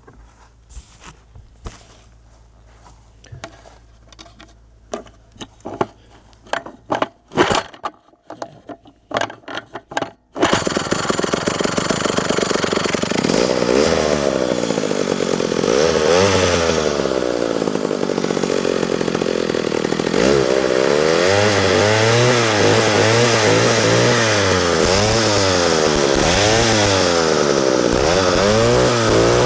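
McCulloch Mac D30 two-stroke chainsaw being started: after a few scattered clicks and knocks, the engine fires about ten seconds in and keeps running. It is then revved up and down over and over, the revs rising and falling in quick swoops.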